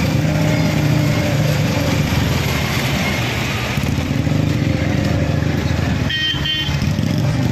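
Dragon train kiddie coaster running on its steel track: a steady low mechanical rumble. Two short horn toots sound about six seconds in.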